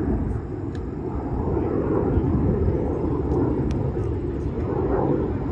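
Steady low rumble of the Red Arrows' BAE Hawk jet trainers flying overhead in formation, heard from the ground.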